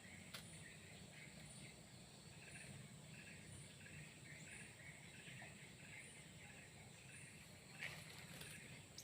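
Faint outdoor ambience: a steady high insect drone with a regular chirp about twice a second, and two light clicks.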